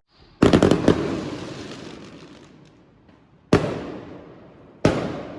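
Fireworks going off: a crackling burst about half a second in, then single sharp bangs near the middle and near the end, each fading out slowly over a second or more.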